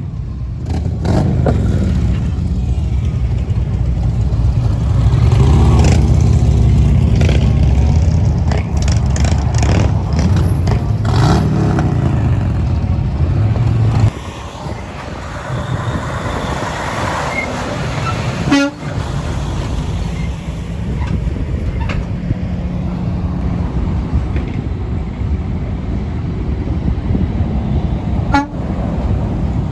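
Semi trucks passing close by with a heavy engine and road rumble, loudest in the first half and dropping off suddenly about halfway through, with truck horns honking.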